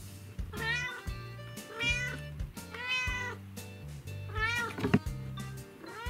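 Black-and-white domestic cat meowing repeatedly: four meows about a second apart, each rising and then falling in pitch, with a fifth beginning at the end.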